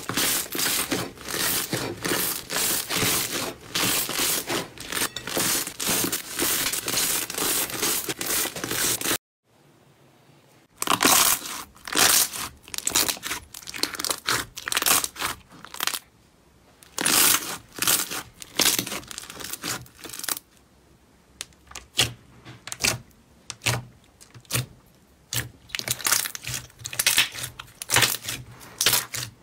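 Slime being kneaded and squeezed by hand: a thick yellow slime crackling densely and continuously for the first nine seconds, then, after a brief silence, a clear green slime with black specks squelching and popping in separate bursts.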